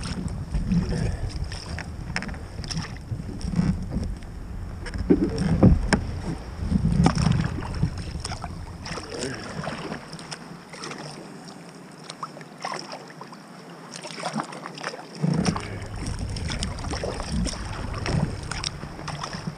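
Sea kayak under way: irregular paddle splashes and water sloshing against the hull, with wind rumbling on the deck-mounted microphone. The wind rumble drops away for a few seconds about ten seconds in.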